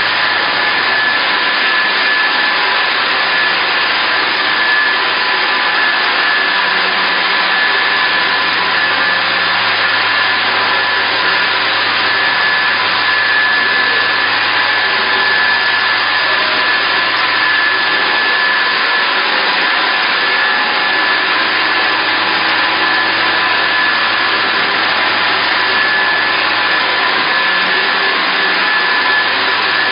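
Steady whirring din of dairy processing machinery (motors and pumps running), with a constant high whine over a low hum and no change in level.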